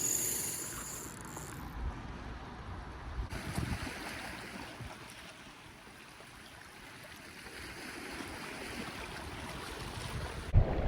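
Sea washing on the shore, with wind buffeting the microphone in low gusts.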